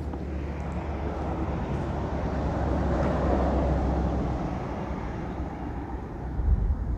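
A vehicle passing by, its noise swelling to a peak about three seconds in and then fading away, over a steady low rumble.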